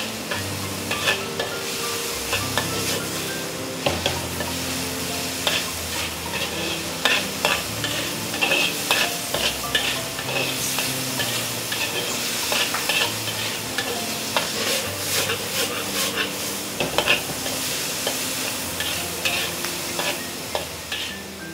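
Metal spatula stir-frying vegetables in a hot wok: a steady oil sizzle with frequent, irregular scrapes and clinks of the spatula against the wok.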